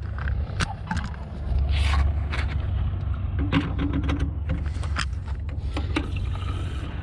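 Plastic fuel-sampler cup clicking and tapping as it is pushed up against an aircraft's wing fuel-sump drain valves to draw off fuel, over a steady low rumble.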